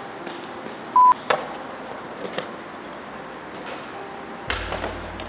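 A single short, loud electronic beep, one steady tone, about a second in, over low background noise with a few light clicks and knocks.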